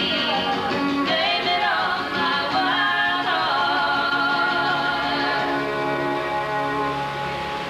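A woman singing long held notes over instrumental music.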